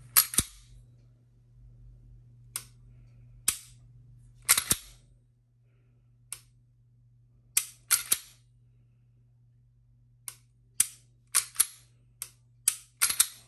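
Walther Q5 Match SF steel-frame pistol fitted with a Walther Dynamic Performance Trigger being dry-fired again and again, giving sharp metallic clicks as the trigger breaks and resets. There are well over a dozen clicks at irregular intervals, several in quick pairs or triplets.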